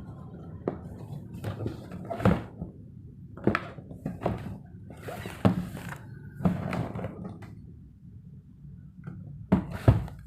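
Cardboard shoe box being handled and opened: irregular knocks, thuds and rustles, with two sharper knocks near the end.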